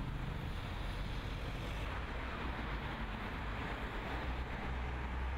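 Steady rushing noise with a low drone underneath: aircraft engine and airflow noise heard inside the cabin.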